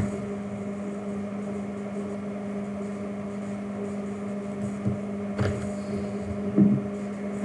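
Room tone: a steady low electrical hum, with a click about five seconds in and a soft thump near the end.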